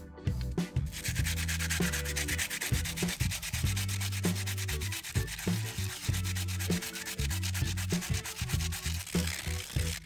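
Hand sanding with 100-grit abrasive paper, rapid back-and-forth scrubbing over a hardened sand, baking-soda and glue patch on a plastic hubcap. The scrubbing starts about a second in, with low background music underneath.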